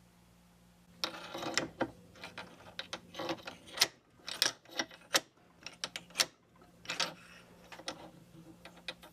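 Irregular run of mechanical clicks and clattering knocks, starting about a second in, over a faint steady hum.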